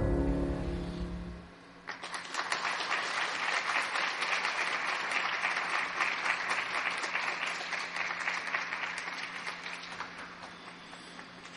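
Program music ends on a final chord; then, about two seconds in, the audience applauds, and the clapping fades away near the end.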